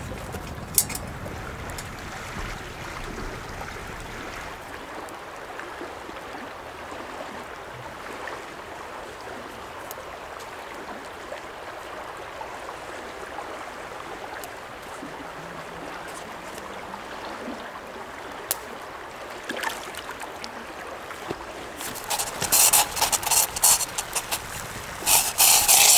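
Steady rush of a shallow creek flowing over rocks, with a few faint clicks. In the last few seconds, a quick series of loud, scratchy bursts stands out over it.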